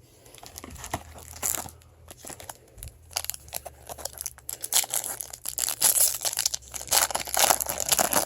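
Foil wrapper of a Bowman Chrome card pack being torn open and crinkled, a run of sharp crackles that grows busier and louder in the second half.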